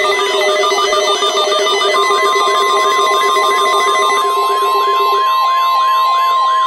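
Electronic alert tones layered together: a warbling tone sweeping up and down about three times a second over other steady tones, joined about two seconds in by the steady 1050 Hz NOAA Weather Radio warning alarm tone; a low steady tone drops out about five seconds in.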